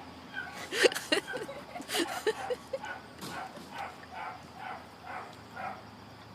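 Horse yawning: a few sharp clicks about a second in, then a run of short squeaky sounds, about two or three a second.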